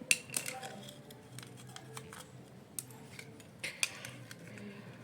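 Scattered sharp clicks and snips of small hand tools and plastic switch parts being handled during an electrical plug switch repair. The loudest come just after the start and again about three and a half seconds in.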